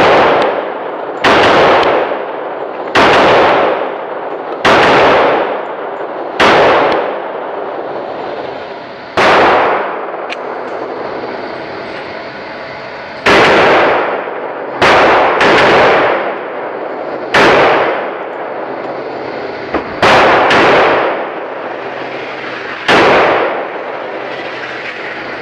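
Glock 41 long-slide pistol firing .45 ACP, about a dozen shots at irregular intervals of one to four seconds, twice as quick pairs, each shot ringing out in the echo of an indoor range.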